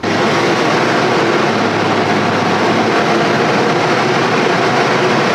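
1945 GMC DUKW amphibious truck's straight-six engine running steadily under load, heard from inside the open cab as it is under way afloat: a loud, even drone with a constant low hum.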